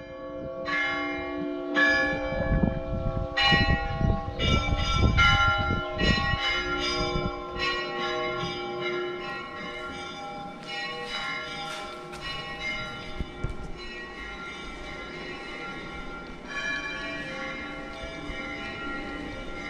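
Orthodox church bells ringing a peal: many bells of different pitches struck in quick, overlapping succession. Deep strikes of a large bell come through in the first six seconds or so; after that the lighter bells keep ringing, a little less loud.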